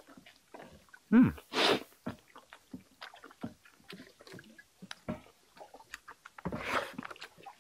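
A man eating: chewing and lip smacks with many small clicks, a short low grunt falling in pitch about a second in, and two loud sucking intakes of breath, one near two seconds in and one near seven.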